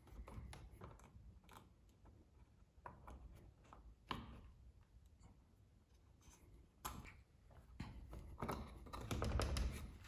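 Faint small clicks and taps of plastic and metal as a Nuki Smart Lock 3.0 is fitted onto a door's lock cylinder and mounting plate, with sharper clicks about 4 and 7 seconds in and a quick run of clicking near the end as the lock is seated.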